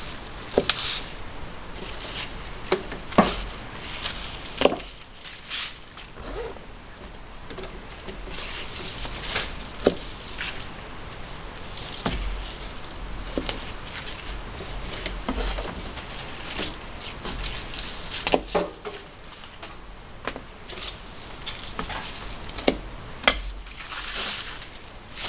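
Scattered small clinks, taps and knocks of things being handled, like kitchenware or utensils being picked up and set down, over a soft hiss.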